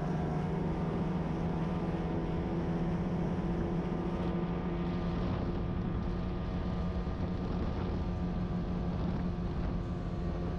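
Ski-Doo snowmobile engine running at a steady cruising speed, one even drone that holds its pitch throughout.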